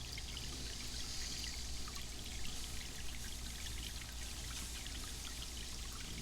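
Small bird-bath fountain's water splashing and trickling steadily, with a patter of drops.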